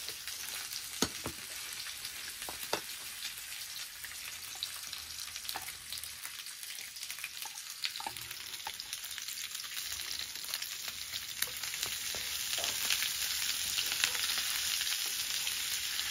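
Pork pieces sizzling in oil in a frying pan, with a spatula stirring and clicking against the pan now and then. The sizzle gets louder about two-thirds of the way through.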